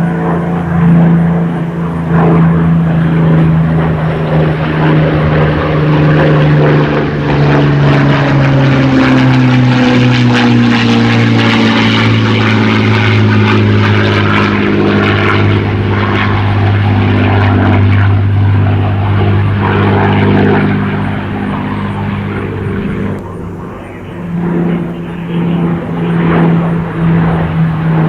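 Rolls-Royce Merlin V12 engine of a WWII British propeller warbird flying past, a loud steady drone whose pitch falls about a third of the way through as the aircraft passes, then holds steady, with a brief dip in loudness near the end.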